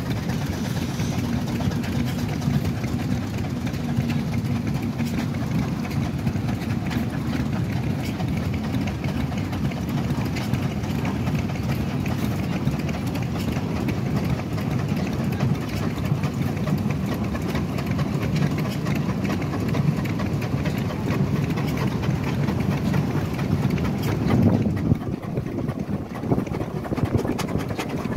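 Several steam traction engines working hard under load as they haul a heavy diesel engine uphill, with a steady, dense, low mechanical pulsing. The sound swells louder about 24 seconds in, as the lead engine comes close.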